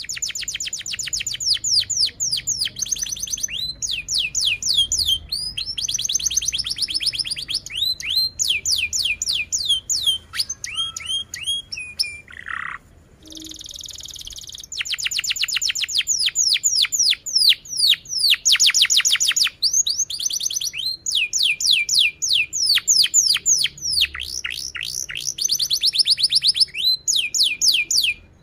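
Domestic canary singing a long song of rapid trills, fast runs of repeated down-slurred notes alternating with buzzy rolls. There is one long falling note and a short pause a little before halfway, then the trills resume.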